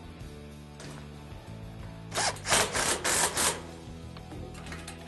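Cordless drill with a socket tightening the basket's mounting bolts, run in several short bursts about two seconds in. Background music plays throughout.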